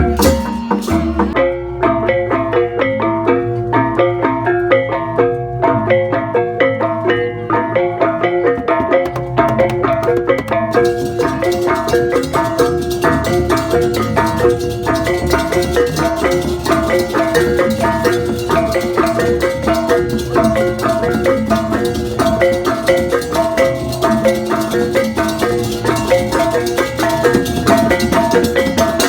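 Balinese gamelan playing: rapid interlocking bronze gong-chime and metallophone notes over drums, with a bright clashing layer joining about ten seconds in.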